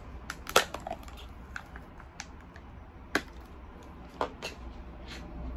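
Scattered plastic clicks and crinkles as a plastic drink-powder tub is handled and its lid and seal are opened, the loudest click about half a second in.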